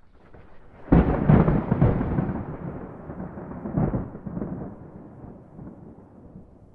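Thunderclap: a low rumble builds, then a sudden sharp crack about a second in with several quick rolling strikes, a second crash just before four seconds, and a long rumble fading away.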